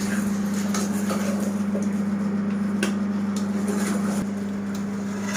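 Chicken gravy cooking in a pot: a steady sizzling hiss with a few faint utensil clicks, over a constant low electrical hum.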